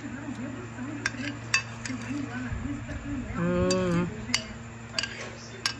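A metal spoon clinks against a glass bowl a few times while someone eats. About three and a half seconds in there is a short hummed voice sound, the loudest thing here.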